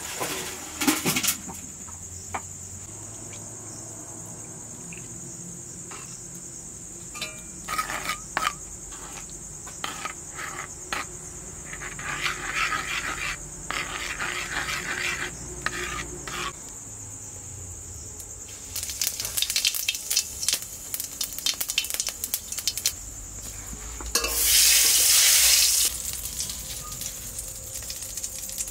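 Metal spoon clinking and scraping in a clay bowl as a thin spice-paste gravy is stirred, in short bursts through the middle. A steady high insect trill runs underneath until about four seconds before the end. Near the end comes a loud burst of sizzling, about two seconds long, from hot oil in the kadai.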